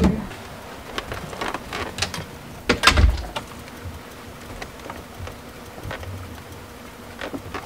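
Scattered clicks, rustles and knocks of things being handled and moved about, with one louder thump about three seconds in, over a steady background hiss.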